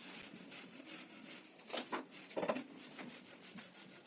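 Faint scrapes and clicks of hand work on a stainless steel pull-out kitchen basket and its side channel, with two louder short ones near the middle.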